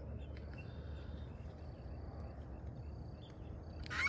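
Quiet outdoor ambience: a low wind rumble with a thin, high, steady insect-like buzz and a few faint ticks, then a short loud sound at the very end.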